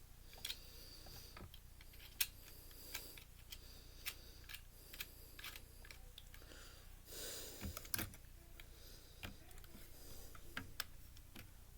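Scattered light clicks, taps and rattles of plastic and metal parts and small tools as a Blu-ray player is being taken apart, with one sharper click about two seconds in and a brief scraping rustle with a cluster of clicks around seven to eight seconds in.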